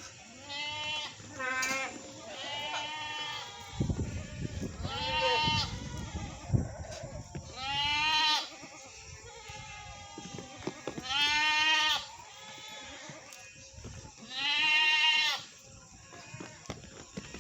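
Goat bleating again and again: about seven separate calls, each wavering in pitch, a few seconds apart. There is a low rumble of noise between the calls near the middle.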